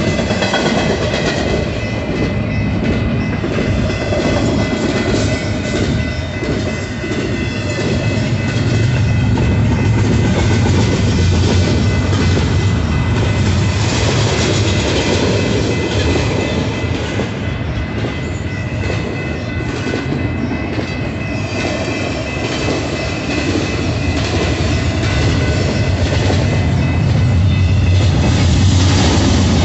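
Double-stack intermodal freight train rolling past at a grade crossing: a continuous heavy rumble of steel wheels on rail, with a clickety-clack over the rail joints.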